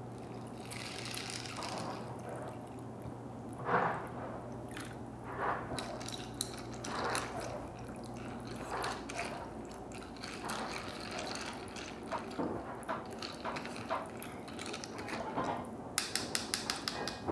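Water poured from a plastic bottle into a cup of dry macaroni, then a plastic spoon stirring the pasta and water in the cup with repeated scraping, sloshing strokes about once a second. Near the end, a quick run of small clicks.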